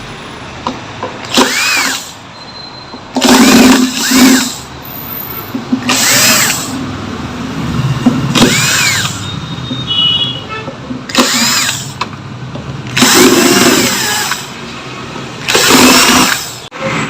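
Electric screwdriver backing out the screws of a home theater unit's back panel: about eight short runs a couple of seconds apart, each motor whine rising and falling in pitch.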